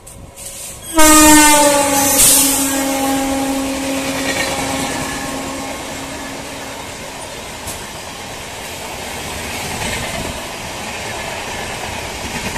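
Horn of an oncoming electric locomotive, blown about a second in and held for around six seconds, dipping slightly in pitch at the start as it closes in. Then the steady rumble and clatter of a passing express's passenger coaches on the next track.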